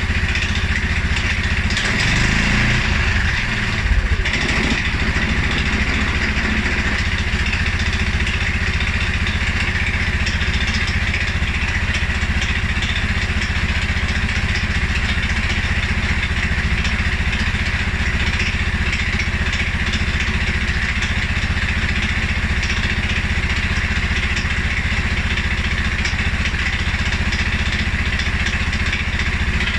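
2011 Polaris Sportsman 550 XP ATV engine running. About two seconds in its pitch drops, with a sharp knock near four seconds, then it settles into a low idle. The owner's complaint is a stumble and low rough idle after revving, which persists although the dealer found the EFI sensors, valve clearances, timing and fuel pressure in spec.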